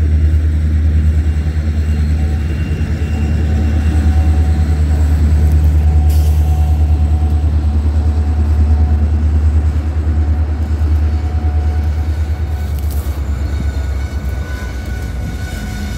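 Two diesel freight locomotives crawling past at low speed, their engines giving a deep steady throb that eases off about fourteen seconds in as they move on. Boxcars then roll by with a faint high wheel squeal.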